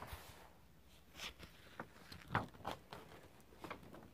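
Sketchbook paper being handled and a page turned: a few short rustles and light knocks, the loudest about halfway through.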